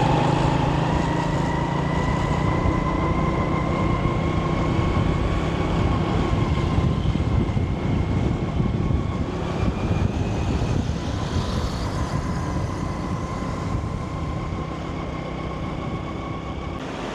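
Motorcycle taxi's engine running steadily while riding, with a faint whine that rises slightly in pitch and then holds, over wind and road noise.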